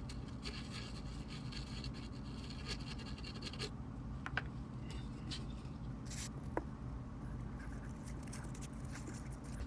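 Faint scratching and scrubbing on a printed circuit board as flux residue is cleaned off with flux cleaner, with a couple of light clicks, over a steady low hum.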